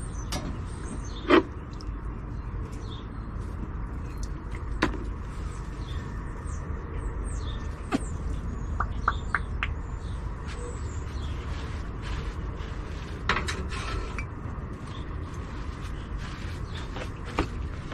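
Scattered knocks and clicks, a few of them sharp, over a steady low rumble.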